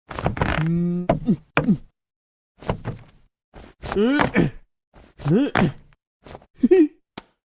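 Cartoon character voices making short wordless cries and grunts that swoop up and down in pitch, with sharp knocks and thuds between them.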